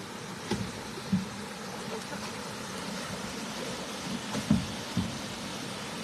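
Steady rush of shallow water pouring over a concrete weir, with a few low splashing thuds of boots wading through it, the loudest a little after halfway.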